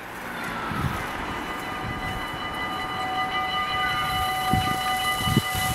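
Warning bells of an automatic half-barrier railway level crossing ringing steadily as the crossing activates, signalling that a train is approaching. Low rumbling gusts sound now and then underneath.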